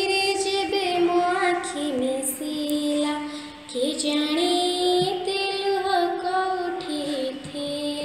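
A girl singing an Odia devotional bhajan to Lord Jagannath, in long held notes that slide from pitch to pitch.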